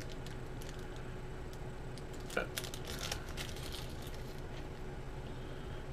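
Faint crinkling of a small plastic parts bag and light clicks of small parts being handled, over a steady low hum.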